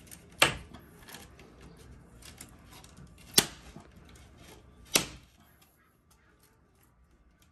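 New bowtie emblem being pushed into a plastic front grille: three sharp clicks spread over about five seconds as its mounting clips snap into place, with faint handling ticks between.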